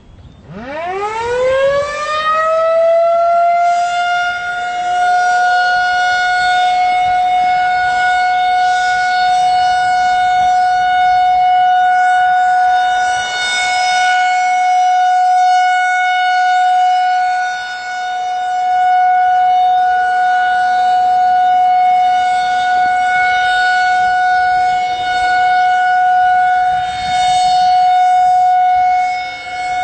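Federal Signal 2001-SRN electromechanical outdoor warning siren winding up from a stop, its pitch rising steeply over the first couple of seconds, then holding one steady tone. As the rotating siren head turns, the loudness swells and dips every several seconds.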